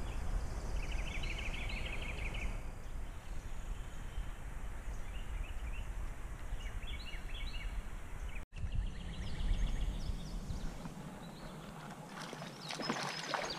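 Outdoor river ambience: a low steady rumble with small birds chirping and trilling in the trees, a rapid trill about a second in and short calls a few seconds later. The sound cuts out for an instant a little past halfway, and after that the rumble is lighter.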